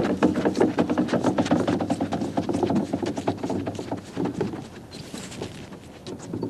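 Ice boat runners scraping and chattering over rough lake ice as the boat is pushed off and picks up speed: a rapid rattling clatter that fades away over the last couple of seconds as the boat sails off.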